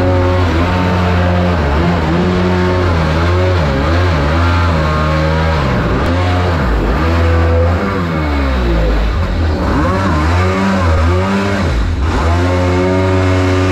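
Supercharged mini jet boat engine running hard. Its pitch holds steady, then drops and climbs again several times through the middle as the throttle is eased and reopened, and steadies again near the end.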